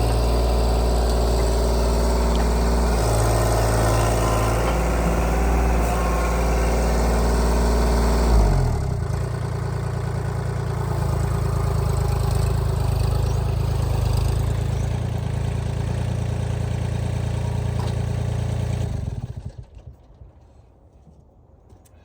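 An engine running steady, changing its note with a brief surge about eight seconds in, then shutting off a few seconds before the end.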